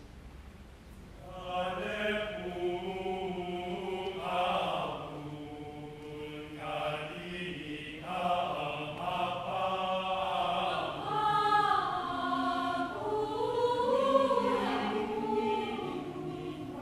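Mixed choir of men and women singing, soft for the first second and a half, then swelling, and loudest near the end.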